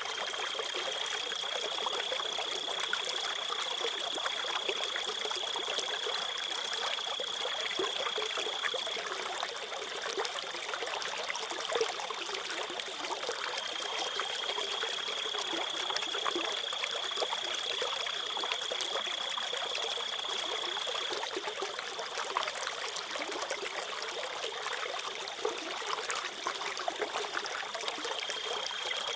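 A small stream trickling and babbling steadily, with crickets trilling in one steady high-pitched note that comes and goes in long spells of several seconds.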